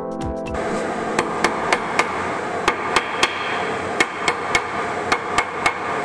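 A wooden stick ramming sodium silicate molding sand around a casting pattern: a run of knocks, about three or four a second in short groups, starting about a second in once the electronic music cuts off.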